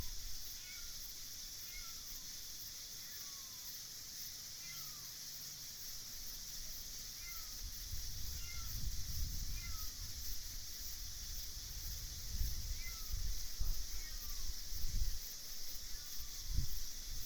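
Night ambience: a steady high chorus of insects with a short, falling call repeated about once a second, over a low rumble that swells in the second half.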